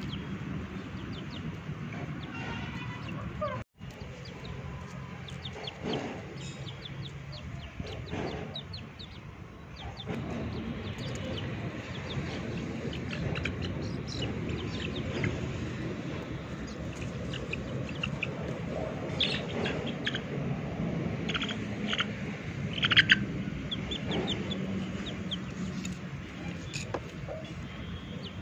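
Chickens chirping in many short, high calls, scattered irregularly over a steady low hum.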